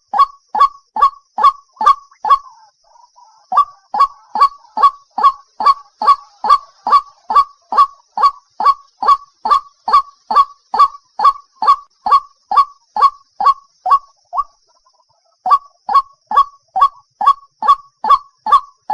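A waterhen calling: loud, short, honking calls repeated evenly at about two and a half a second, each dropping in pitch. The series breaks off briefly twice, about three seconds in and near the end.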